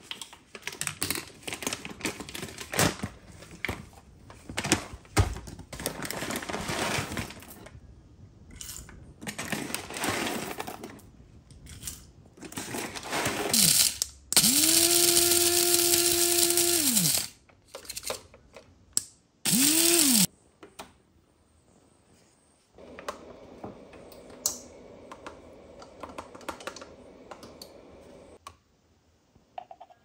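Coffee beans rattling and clicking as they are scooped and poured. Then a small electric coffee grinder runs for about three seconds, its motor winding up to a steady whine and spinning down, followed by a shorter second pulse; a quieter steady noise lasts several seconds after.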